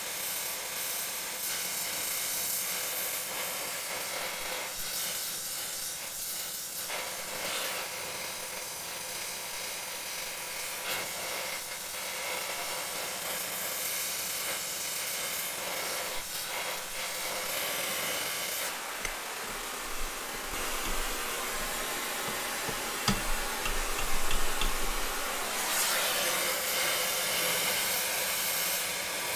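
Oxy-fuel gas torch flame hissing steadily as it heats the steel around a seized bolt to expand it. A few short knocks stand out about two-thirds of the way in.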